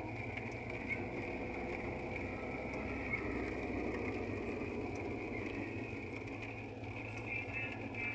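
Steady road noise inside a car driving on a wet street in the rain: the engine and tyres on wet pavement, with a steady faint high tone and a few light ticks.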